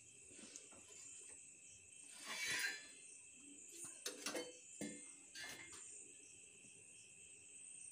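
Faint steady chirping of crickets. About two and a half seconds in there is a brief scrape as the iron tawa is taken off the gas burner. Between four and five and a half seconds come a few light metallic clicks of tongs as the phulka is set on the open gas flame.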